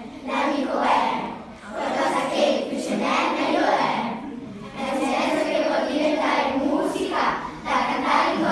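A group of children chanting a rap together in unison, in phrases of a second or two with short breaks between them.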